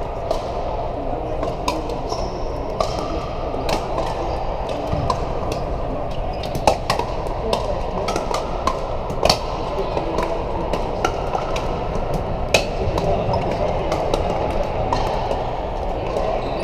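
Pickleball paddles striking the hard plastic ball: irregular sharp pops and clicks from the near court and many courts around it, echoing in a large hall over a steady murmur of voices. The loudest hits come about six and a half, nine and twelve and a half seconds in.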